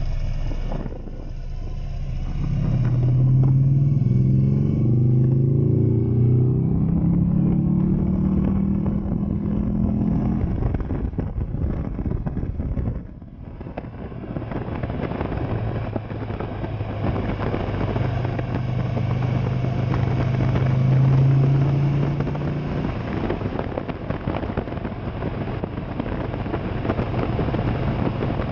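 Buell motorcycle engine heard from the rider's seat, pulling hard and rising in pitch in steps as it shifts up through the gears, easing off briefly about halfway, then cruising at a steady pitch. Road and wind noise runs underneath throughout.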